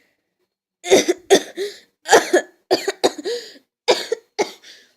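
A person coughing in a fit of short, sharp coughs, about ten in a row, starting about a second in.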